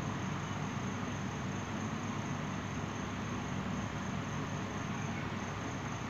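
Steady background hiss with a thin, high-pitched whine held throughout: room tone, with no distinct scrapes or knocks from the spoon in the soft mixture.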